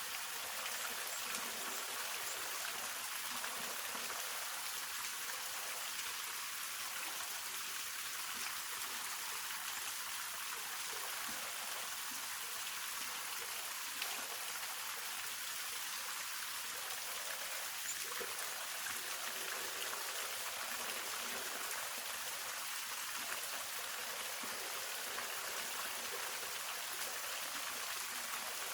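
Hongryu Falls, a mountain waterfall, giving a steady, even hiss of falling water, mostly high in pitch with little low rumble.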